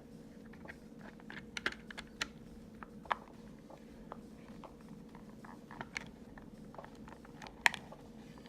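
Scattered small plastic clicks and taps from handling the parts of a PlayStation 4 DualShock 4 controller during reassembly, with one sharper click near the end.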